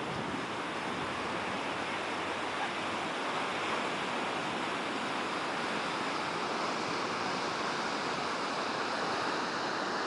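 Ocean surf breaking and washing onto the beach in a steady, continuous rush.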